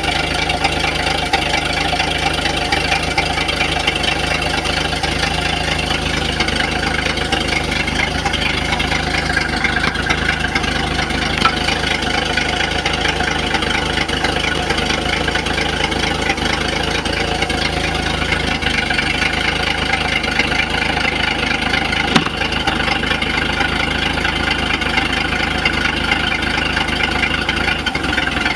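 Engine idling steadily with a knocking noise, which the owner takes for an engine knock problem.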